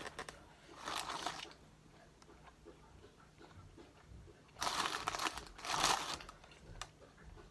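Close-miked crunching of crispy fried chicken wings, in three loud bursts: one about a second in and two close together around five and six seconds in, with small clicks of chewing and handling between them.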